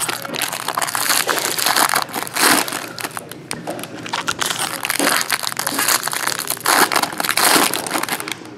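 Foil trading-card pack wrappers crinkling and crumpling in the hands as a jumbo pack is torn open and handled, an irregular run of crackles.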